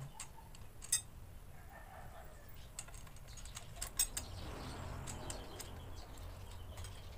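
Scattered light clicks and handling noise of a pink tubular baby rocker frame being fitted together by hand, with a sharper click about a second in and another about four seconds in, over a low steady hum.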